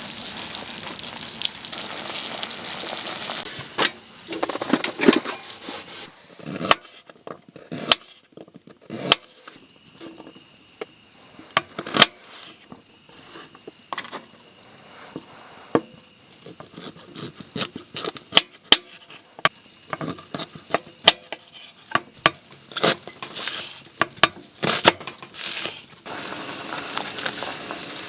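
Irregular crinkling, crackling and sharp clicks of things being handled close by, many small sharp sounds in a row. A steady hiss runs under the first few seconds and returns near the end.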